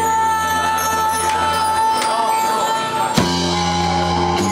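Rock band playing live, with electric guitar, bass guitar and drums. Long held notes ring out, with a single sharp hit about three seconds in.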